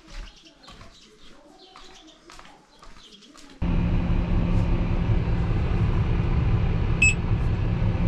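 Faint bird chirping, then about three and a half seconds in a Fendt tractor's diesel engine comes in suddenly and runs steadily, heard from inside the cab. A short high electronic beep sounds near the end.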